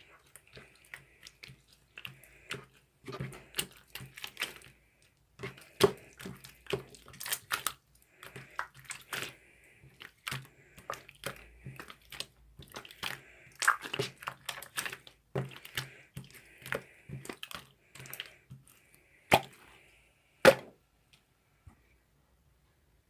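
Slime being squished and kneaded by hand with shaving foam mixed in: a dense run of irregular sticky clicks and pops, with a sharp snap about twenty seconds in.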